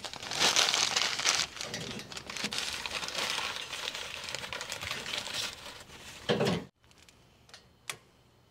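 Sheet of newspaper being crumpled and crinkled by hand and stuffed under a charcoal chimney starter, for about six and a half seconds. It cuts off suddenly, followed by a few faint clicks from a long-neck lighter.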